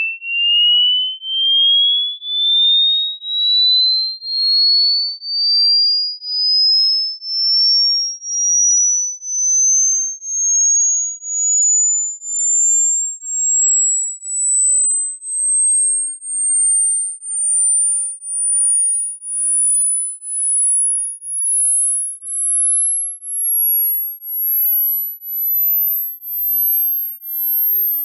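Hearing-test tone: a single pure sine tone beeping about once a second while its pitch climbs slowly and steadily from high to very high.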